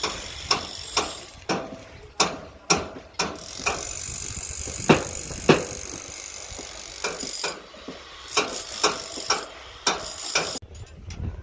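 Irregular sharp knocks and clinks, about one or two a second with a short pause midway, from hand work on footing formwork and rebar.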